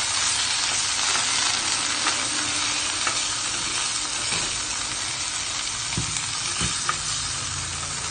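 Margarine sizzling as it melts in a hot stainless-steel pan, with a wooden spatula stirring and scraping through it. Two light knocks come near the end.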